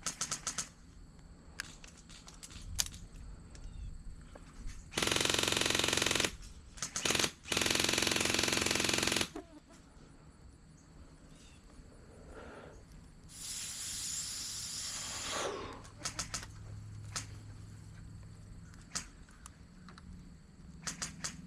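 An airsoft gun firing on full auto in two long bursts, the second longer. Scattered sharp single snaps come before and after, and there is a short hiss about two-thirds of the way through.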